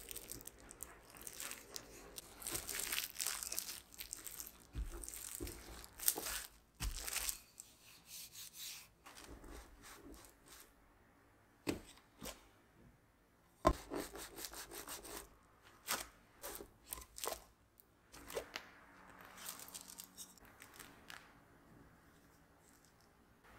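A rolling pin rolls tart dough between sheets of plastic wrap, which crinkles and rustles. About halfway a round cutter is pressed through the dough, giving a few sharp clicks and taps. Near the end there is softer rustling as the cut circles are lifted off the wrap.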